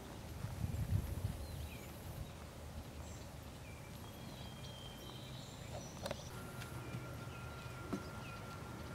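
Soft hoofbeats of a ridden horse moving across grass, with a brief low rumble about a second in.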